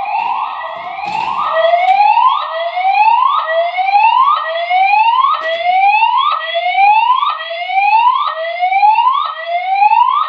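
Building fire alarm sounding its evacuation tone during a fire alarm test. It is a loud rising sweep that repeats about once a second, each one climbing in pitch and then dropping back sharply.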